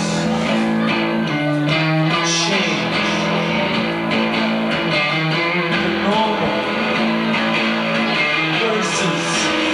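Electric guitar played live, ringing held notes with a few bent notes sliding in pitch.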